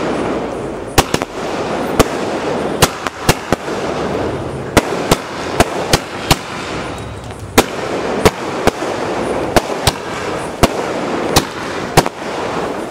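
Multi-colour 30-shot aerial fireworks cake firing: an irregular run of sharp bangs, about one to two a second, over a steady hiss from the launches and bursting stars.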